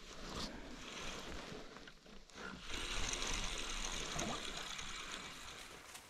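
Spinning reel being cranked to retrieve line: a steady whirring hiss from about three seconds in, after a few light handling knocks.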